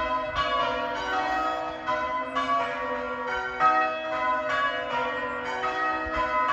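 Church tower bells rung full-circle by a team in change ringing. The strokes follow one another about every half second, each bell's tone ringing on into the next.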